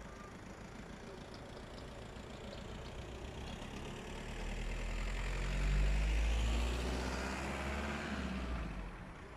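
Volkswagen Passat sedan driving past close by and away. Its low engine rumble and tyre noise on asphalt swell from about four seconds in, peak around six seconds, and die down near the end.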